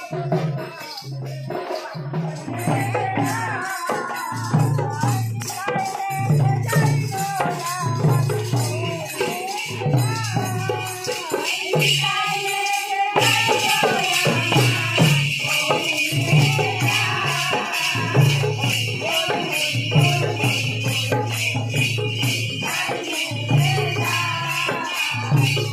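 Harinam sankirtan: a group of women chanting the kirtan together over a khol drum beating a steady rhythm and small hand cymbals and clappers jingling on the beat.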